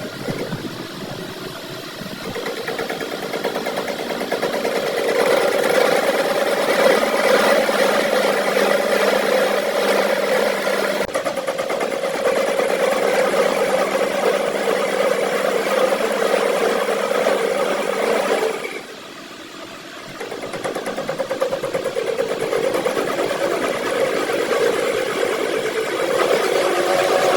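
A machine motor running with a steady hum. It drops away briefly about two-thirds of the way through, then builds back up to speed.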